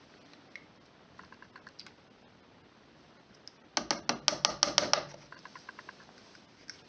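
A rapid run of sharp mechanical clicks from the washing machine, loudest in a burst of about ten clicks midway, with softer clicks before and after.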